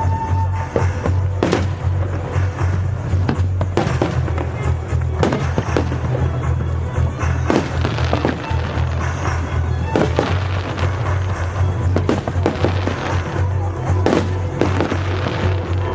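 Fireworks show: many bursts, pops and crackles in quick, irregular succession, over music playing.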